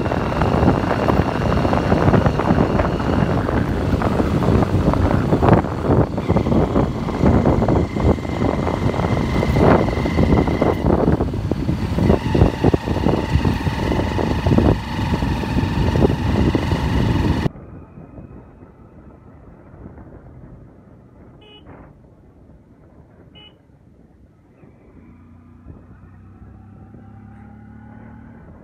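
Vehicle driving on a road, with heavy wind buffeting on the microphone and road noise. About two-thirds of the way through the sound cuts off abruptly to a much quieter engine hum.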